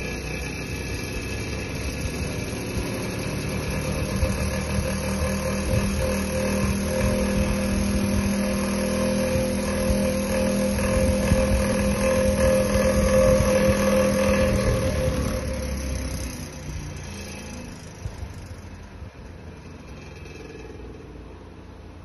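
Restored vintage Westinghouse-built Eletromar desk fan running: a steady motor hum with the rush of its blades' air. It grows fainter over the last several seconds.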